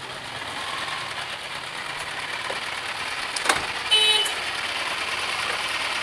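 Steady background noise of vehicles and workshop activity. There is a sharp click about three and a half seconds in, then a short high-pitched beep.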